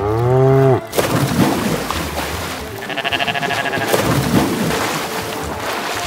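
Cartoon animal sound effects: a cow moos once, a short call under a second long and the loudest sound here. Splashing water then runs on, with a quavering goat bleat about three seconds in.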